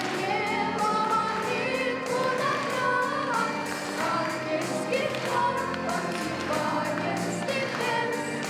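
A song: singing voices, possibly a small choir, with a wavering vibrato over instrumental accompaniment of held tones.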